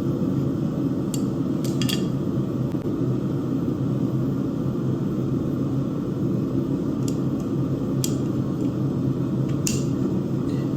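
Steady rushing of a blacksmith's forge fire and blower with a low hum. A handful of sharp metal clinks come at irregular moments: steel and tools being handled, not rhythmic hammering.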